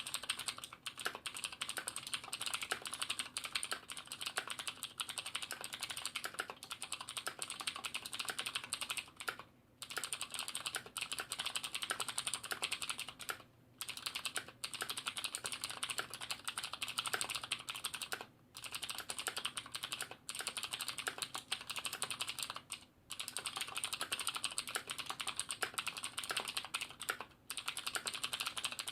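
Fast typing on a Davinci Spaky mechanical keyboard with KBTalking blue clicky switches, its sliders and stabilizers lightly lubed and its case dampened with foam: dense runs of crisp key clicks, with short pauses every few seconds.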